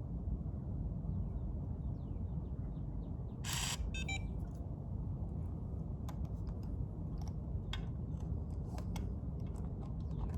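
Electronic keypad door lock giving a short electronic beep about four seconds in, just after a brief rustling burst, as its wiring connector is joined: the sign that its batteries are good. Small clicks of handling the lock parts follow.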